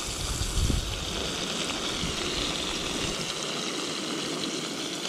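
Fish fillets sizzling in hot oil in a cast iron skillet, a steady hiss, with a brief low thump about half a second in.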